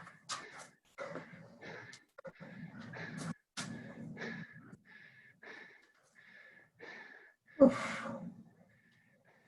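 A person panting and gasping for breath after the exertion of burpees: short, rapid breaths in quick succession, with one louder breath about eight seconds in.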